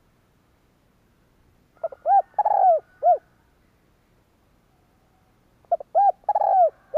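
Spotted dove cooing: two phrases about four seconds apart. Each phrase is a couple of quick short notes, then a coo, one longer drawn-out coo and a final short coo.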